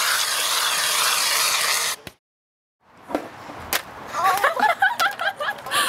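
Aerosol whipped-cream can spraying into a foil pie tin with a steady, wavering hiss, which cuts off suddenly about two seconds in. After a moment of silence come sharp smacks of the cream pie hitting a face, then a run of short wavering voice-like sounds.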